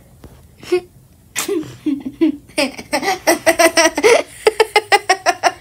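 A child laughing hard: a fast run of pitched "ha-ha" pulses, about five a second, in the second half, after a sudden sharp burst of breath about a second and a half in.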